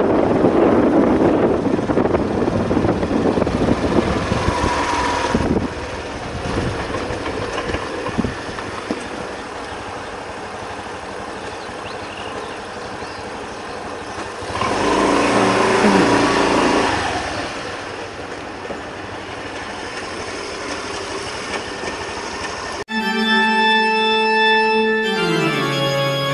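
Honda Lead 125 scooter's single-cylinder engine running with wind noise while riding, dropping to a quieter idle about five seconds in, and louder again for a couple of seconds midway. Near the end, background music with sustained organ-like notes starts abruptly.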